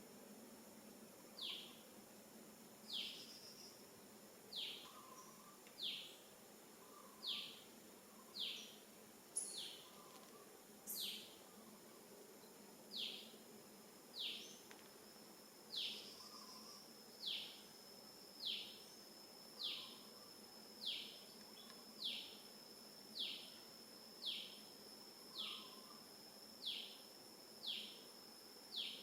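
An animal repeating a short high call that falls steeply in pitch, about once every second and a half, over a faint steady high hum.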